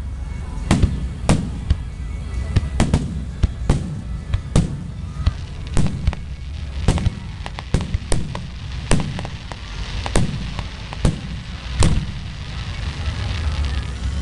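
Aerial fireworks shells bursting one after another, sharp booms one or two a second and sometimes in quick clusters, thinning out near the end, with music playing underneath.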